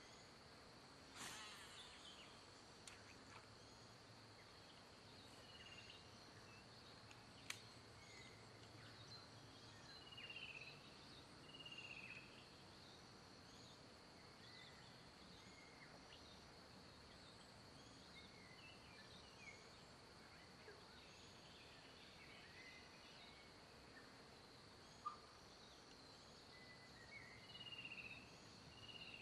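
Faint dusk bush ambience: a steady high-pitched insect drone with scattered short bird chirps, and a couple of sharp clicks.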